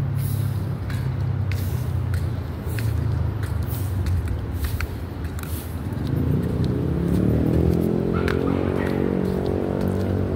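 Steady low hum of street traffic, with a vehicle engine speeding up over the second half, its pitch rising. Footsteps tap evenly, about one and a half steps a second.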